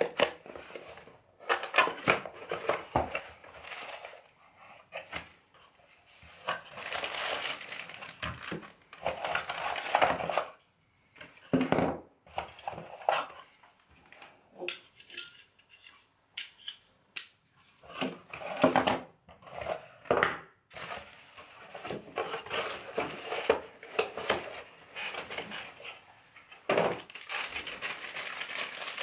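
Cardboard box and plastic packaging being handled: rustling and crinkling in irregular bursts, with clicks and knocks as the parts are taken out and set down on a wooden desk.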